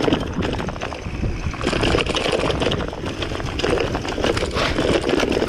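Rigid gravel bike rattling over a rough, leaf-covered dirt trail: tyres rolling on dirt with constant clicks and knocks from the bike, and wind rumbling on the microphone.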